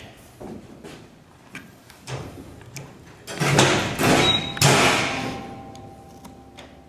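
Light knocks and taps, then two loud scraping, rustling bursts about three and a half and four and a half seconds in, the second fading out over a second or so. These are work sounds from handling the canvas and its stretcher frame.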